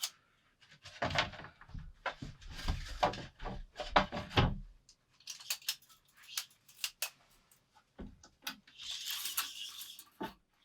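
Irregular knocks, heavy thumps and scraping from hands handling wooden or hard objects, with the heaviest thumps in the first half and a stretch of scraping near the end.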